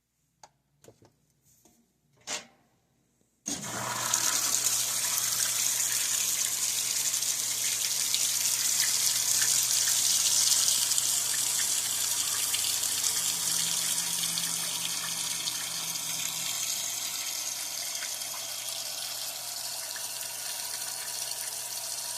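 A few clicks, then about three and a half seconds in water suddenly starts rushing into a washing machine through its fill valve and keeps running steadily with a low hum underneath.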